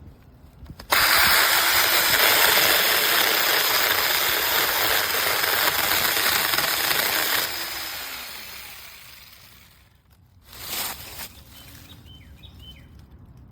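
Small battery-powered brushless mini chainsaw running, starting abruptly about a second in. Its motor note drops and it winds down over a couple of seconds near the middle. A short rattle follows near the end.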